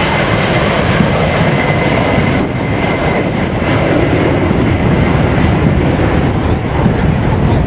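Jet engines of a large multi-engine transport aircraft making a low flypast: a loud, steady roar with a faint high whine.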